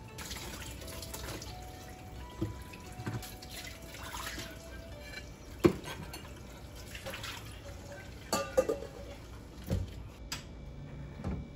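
Water running at a sink with several clinks and knocks of dishes being handled, the sharpest about halfway through.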